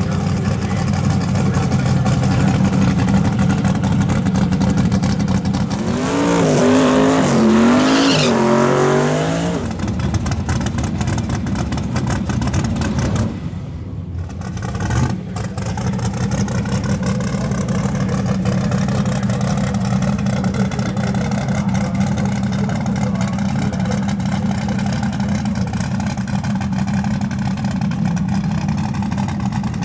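Car engine running steadily, with a louder, wavering rise in engine pitch from about six to nine seconds in, as an engine revs or accelerates.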